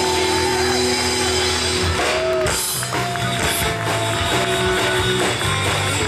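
A live rock band of electric guitars, bass and drum kit playing an instrumental passage, with long held guitar notes that change about two seconds in.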